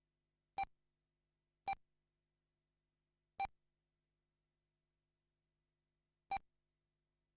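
Four short electronic beeps at irregular intervals from an RC race-timing system, each one marking a transponder-equipped car crossing the lap-counting loop.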